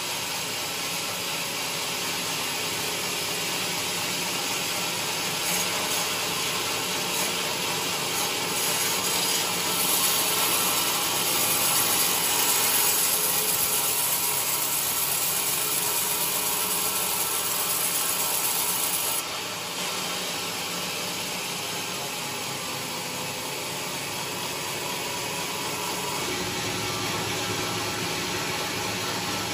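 Large sawmill blade cutting lengthwise through a coconut log, a steady rasping saw noise. It grows louder about a third of the way in and drops suddenly a little past the middle.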